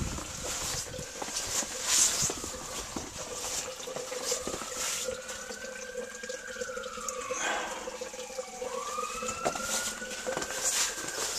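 A distant siren wailing, its pitch rising slowly and falling twice, over steps crunching in fresh snow.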